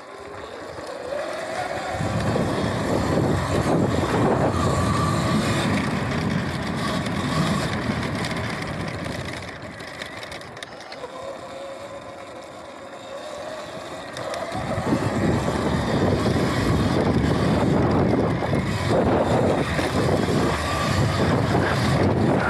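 Sur-Ron Light Bee X electric dirt bike ridden over a dirt motocross track: a loud rushing riding noise over a faint electric-motor whine. It swells about two seconds in as the bike gets going, eases off for a few seconds near the middle, then swells again.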